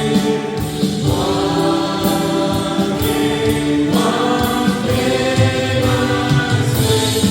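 Music with a choir of voices singing sustained chords that change every second or two, over a light steady beat.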